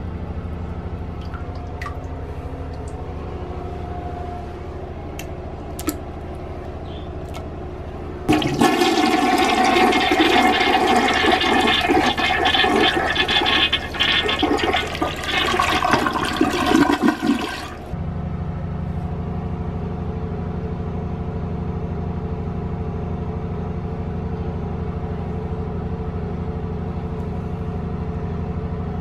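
Toilet flushing: a loud rush of water starts about eight seconds in, runs for about ten seconds and cuts off sharply. A steady low hum runs underneath it.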